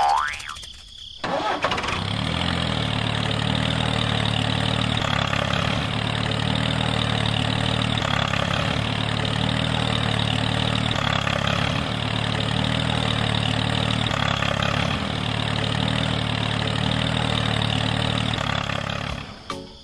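An engine starts about a second in and runs steadily at an even speed, then cuts off near the end.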